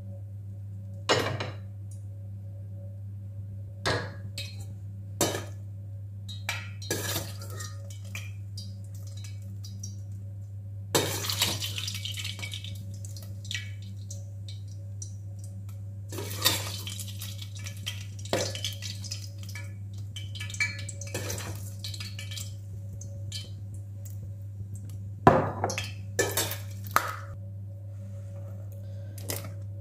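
Metal spoon scraping and knocking against a frying pan and china plates as thick porridge is dished out, in scattered short clinks and scrapes with the loudest cluster near the end. A steady low hum runs underneath.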